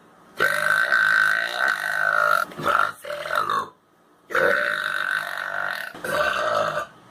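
Someone talking while burping: two long, drawn-out belches of about two seconds each are shaped into spoken names, and each is followed by a shorter burped word.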